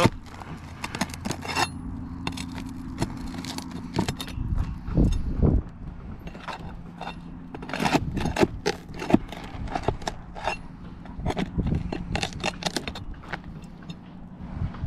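Asphalt roof shingles being lifted and worked loose to get at their nails: irregular scraping, crackling and sharp clicks and knocks of the shingles and tool, with a few heavier thuds. A steady low hum runs underneath.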